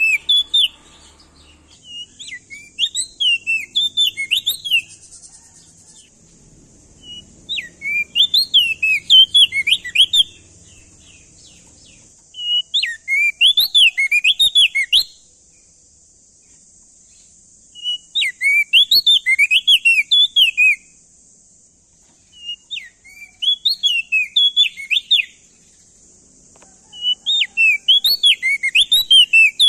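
Crested white-eye (opior jambul) singing loud song phrases of quick rising and falling whistled notes. Each phrase lasts about three seconds, and they repeat roughly every five seconds, six times, over a faint steady high hiss.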